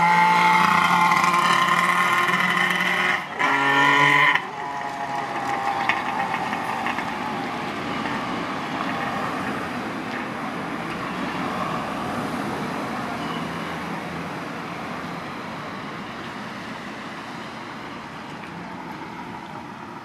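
Kawasaki KH250 two-stroke three-cylinder engine running loud as the motorcycle rides past, with a brief break about three seconds in. It then gives way to steady street traffic noise that slowly dies away.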